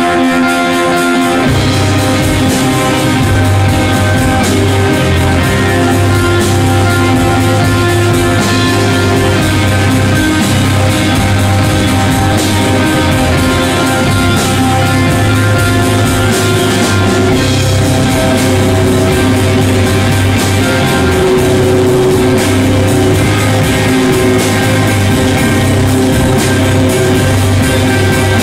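Stoner rock band playing live: electric guitar and drum kit, with held guitar notes at first and the full band with bass and drums coming in about a second and a half in.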